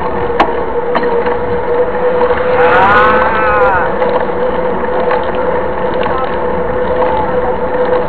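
Road noise of a mountain bike rolling on asphalt, heard from a bike-mounted camera: wind rushing over the microphone and a steady hum from the knobby tyres. A brief rising-then-falling tone sounds about three seconds in.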